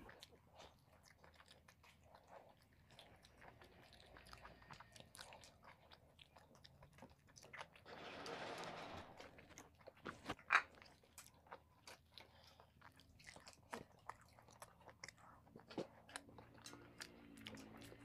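Faint sounds of two people eating luchi and chicken curry with their hands: chewing and many small clicks and smacks. There is a rush of noise lasting about a second, about eight seconds in, and a sharper, louder click shortly after.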